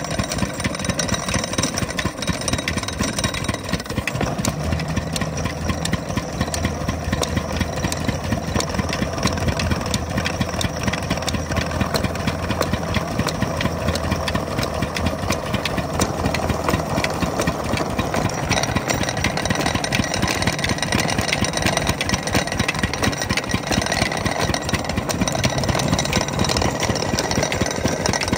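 Stationary diesel engine running steadily with a fast, even beat, driving a belt-driven irrigation water pump.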